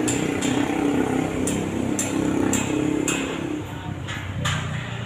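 A motor vehicle engine running close by in street traffic, its hum dropping away about three and a half seconds in, with sharp ticks about twice a second over it and two short louder rushes of noise near the end.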